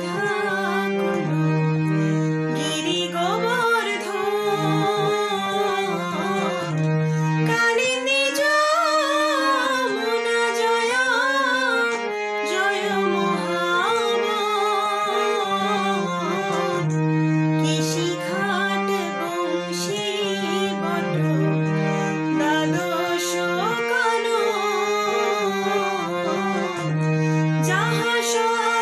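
A woman singing a Bengali devotional bhajan to a harmonium, long held reed chords under her bending, ornamented melody.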